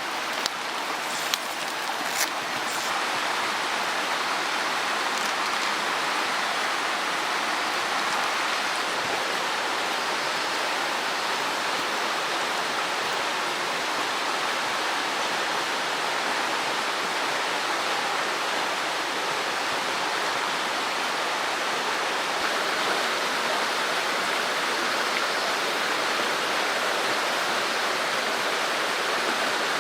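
Mountain stream rushing, a steady even noise of flowing water. A few sharp clicks sound in the first couple of seconds.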